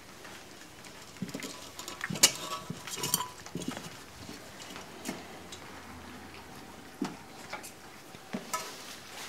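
Several puppies eating from a stainless steel puppy feeding pan: scattered clinks and knocks of the metal pan as they jostle at it, busiest from about two to three and a half seconds in and loudest a little after two seconds, with a few single clinks later.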